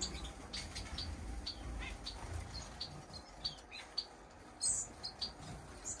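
Small caged finches chirping: many short, high calls scattered throughout, several a second. A brief, sharp hiss sounds about three-quarters of the way in.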